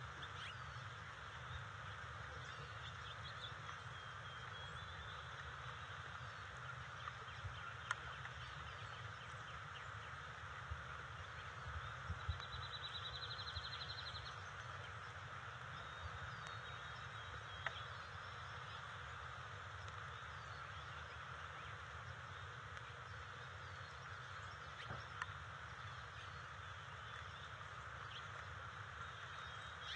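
Outdoor ambience at a tree-top nest: a steady noisy background with faint, scattered songbird chirps and a short buzzy trill about twelve seconds in. A few sharp ticks stand out.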